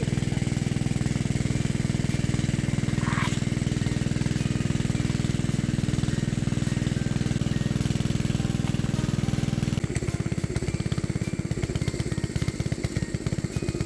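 A small engine running steadily; about ten seconds in its sound turns to a rougher, pulsing beat.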